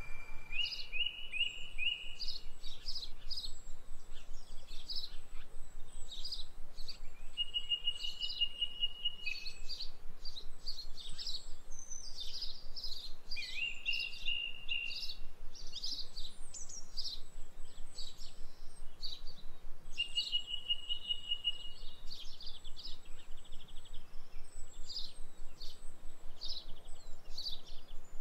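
Songbirds chirping without pause: many quick high chirps, with a held whistled note of about a second every few seconds.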